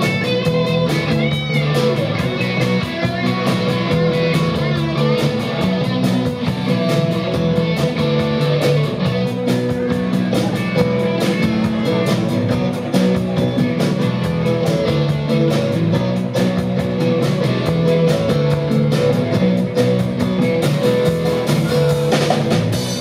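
Live rock band playing: electric guitars, bass, acoustic guitar and keyboard over a drum kit keeping a steady beat. The song stops near the end.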